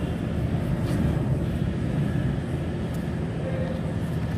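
A steady low mechanical hum of a running engine, unchanging in level.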